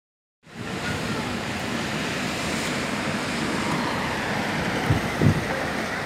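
Steady rushing of strong wind over the microphone, with two brief low thumps about five seconds in.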